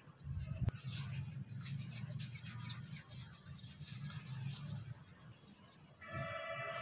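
Palms rubbing and rolling a flour-dusted ball of wheat dough into shape: a steady, dry rasping swish.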